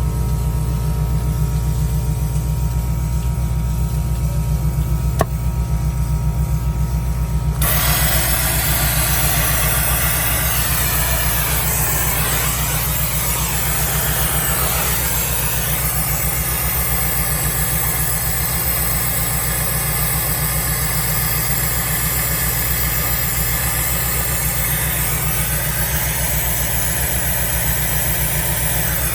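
Komatsu excavator's diesel engine idling steadily with a fast low throb. About seven seconds in, a loud rushing hiss joins it and carries on.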